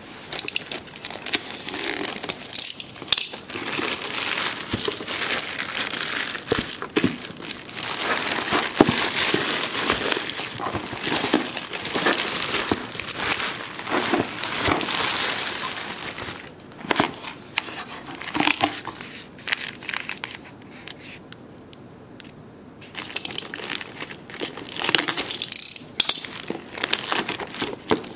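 Plastic courier mailer bags crinkling and rustling as they are pulled and torn open by hand, with sharp knocks and clatters of the boxed items being handled. The noise eases off briefly about two-thirds of the way through.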